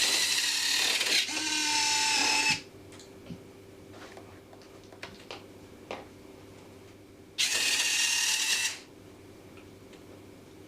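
Stock electric retracts of a Dynam Hurricane RC warbird whirring as the landing gear cycles: one run of about two and a half seconds at the start, then a shorter run a little past seven seconds in.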